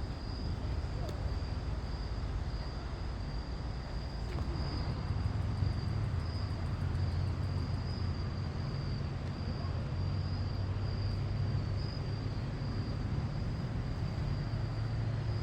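Steady chorus of crickets, a constant high trill, over a low steady rumble.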